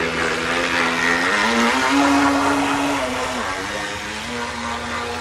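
Radio-controlled 3D-printed jet boat running on its first test, its motor and jet pump giving a steady whine over rushing water. The pitch rises about a second and a half in as the throttle is opened, holds, then drops back about a second and a half later.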